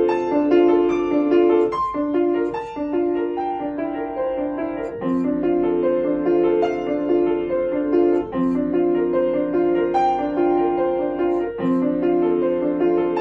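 Solo piano playing, a steady stream of notes over low bass notes that change about every three seconds.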